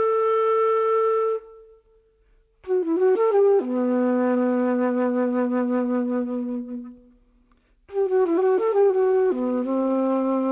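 A lone flute playing slow phrases, three in all. Each opens with a quick flurry of notes and settles on a long held tone, with short silences between the phrases.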